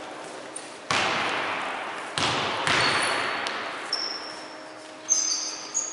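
Basketball game noise in an echoing sports hall: three sharp impacts, each ringing on and dying away slowly, and short high-pitched sneaker squeaks on the court near the end.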